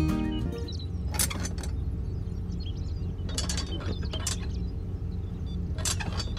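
Small electric motor of a homemade mini tractor humming steadily while its plastic spiked cage wheels are handled and pulled off. Four short bursts of clicking and rattling are heard over the hum.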